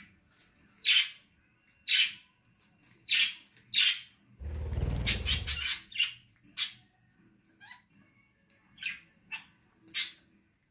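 Kakariki parakeets giving short, sharp, high calls, roughly one a second, with a low rustle lasting about a second near the middle.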